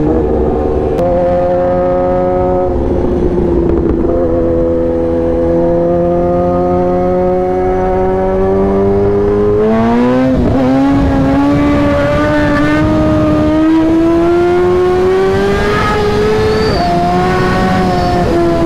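Sport motorcycle engine running under way, heard from the rider's seat. The engine note holds fairly steady and climbs gently, rising more sharply about ten seconds in and again near the end as the bike accelerates.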